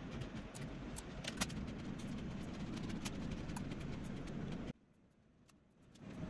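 Steady background rumble with frequent sharp clicks. It cuts out abruptly about three-quarters of the way through, then fades back in near the end.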